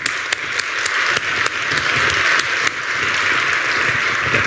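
An audience applauding steadily, many hands clapping together.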